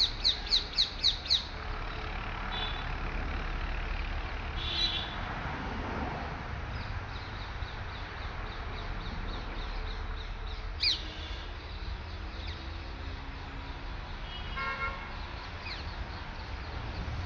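Outdoor ambience: birds calling, opening with a quick run of about six falling chirps, then scattered shorter calls, over a steady low rumble.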